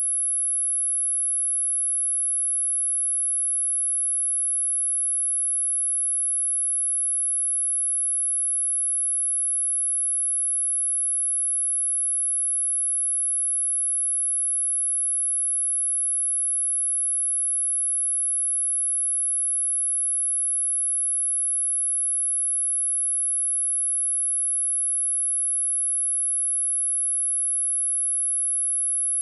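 Steady electronically generated sine-wave test tone at 10,932 Hz: a single very high-pitched whistle that holds the same pitch and level throughout. It is a speaker test tone of the kind played to check speakers or headphones and to clear water and dust from a speaker.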